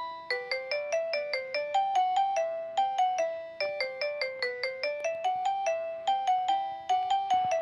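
Philips X100 ringtone melody played through a Nokia 5130 XpressMusic's loudspeaker: a quick run of short, struck-sounding pitched notes, about three or four a second.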